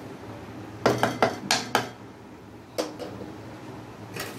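Wooden spatula knocking against a cooking pot: a quick run of about five knocks about a second in, one more a second later and another near the end, as the spatula stirs the rice and lentils in their water.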